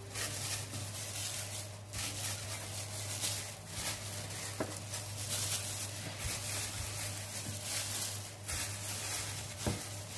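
Steady hiss over a constant low hum, with soft rustling of plastic gloves and a few faint taps as raw kafta patties are set into a ceramic baking dish.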